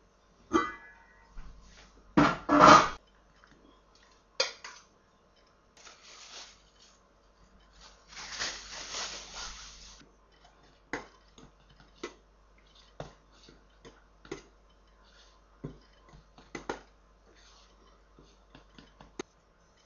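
Knife clicking and scraping against light aluminium-foil pie tins as puff pastry is trimmed around their rims, with the tins knocking on the bench: scattered short clicks, a louder clatter a couple of seconds in and a longer scrape around eight seconds in.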